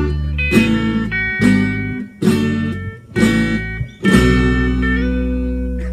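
Guitar music: strummed chords about one a second, with the last chord, from about four seconds in, left to ring on.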